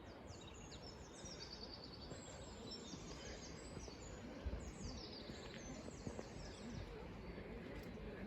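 Small songbirds singing in quick high chirps and trills, in several short phrases over a faint steady outdoor hiss, with one low thump about halfway through.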